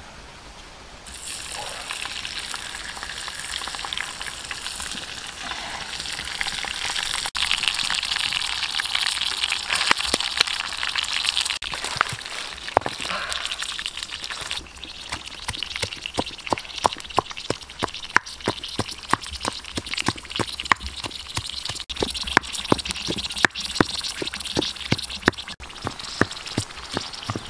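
Hot oil sizzling in a pan with scorpions frying in it: a steady hiss that swells over the first half, then gives way to rapid, irregular spitting pops.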